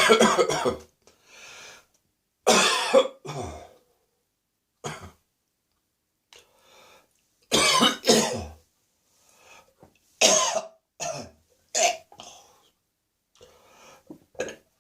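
A person's dry, lingering post-bronchitis cough: about half a dozen hacking bouts a couple of seconds apart, with quieter throat clearing between them.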